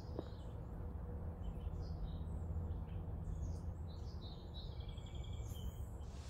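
Several birds chirping and calling, with a quick trill about four and a half seconds in, over a low steady background rumble.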